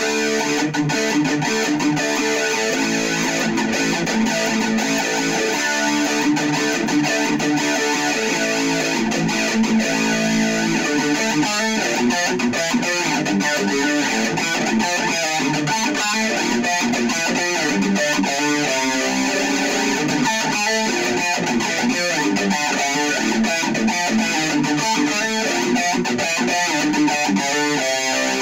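Distorted electric guitar playing continuous heavy riffs: a Jackson King V run through a Black Truck distortion pedal into an Orange Micro Dark hybrid tube amp and PPC108 speaker cabinet.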